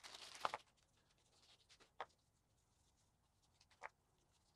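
Small plastic bags and waxed paper being unwrapped by hand: faint crinkling with one louder rustle about half a second in, then quieter handling with two light clicks, about two and four seconds in.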